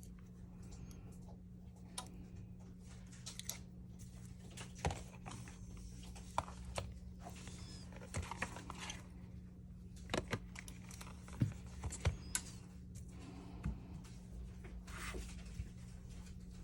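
Scattered small clicks and taps of tools and phone parts being handled during a phone screen repair, over a steady low hum.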